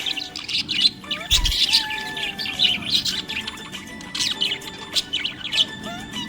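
Budgerigars chirping in quick, high, repeated chirps, over background music with long held tones.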